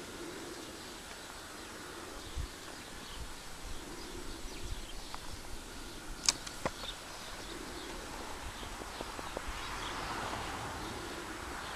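Outdoor background noise: a low steady hiss with scattered faint low thumps and a single sharp click about six seconds in.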